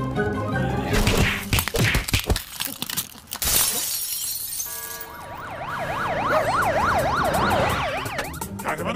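Cartoon sound effects over background music: a few sharp knocks, then glass shattering about three and a half seconds in, followed by an alarm siren wailing rapidly up and down, about two and a half swings a second.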